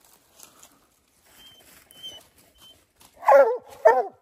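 Hunting dogs at the tree, two loud barks near the end, each dropping in pitch at its tail: hounds barking treed on a possum.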